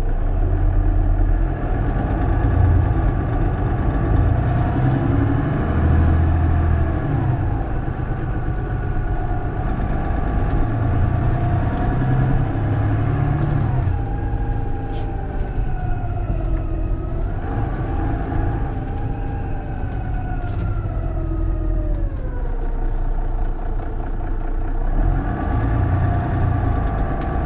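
Mercedes-Benz Citaro city bus's diesel engine and drivetrain running under way, with a deep steady rumble and whining tones that rise and fall in pitch as the bus speeds up and slows. The whine glides down twice, around the middle and again about two-thirds of the way through.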